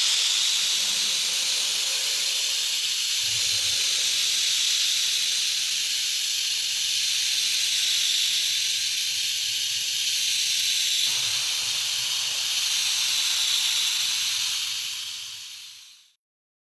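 A loud, steady hiss, like air or spray escaping under pressure, lasting about sixteen seconds and fading out near the end.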